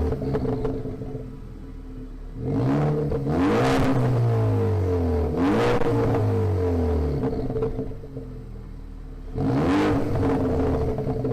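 2017 Ford Focus ST's turbocharged 2.0-litre four-cylinder through a Borla Touring cat-back exhaust, revved in several quick throttle blips from idle, the pitch rising and falling with each blip, two close together after a couple of seconds and another near the end.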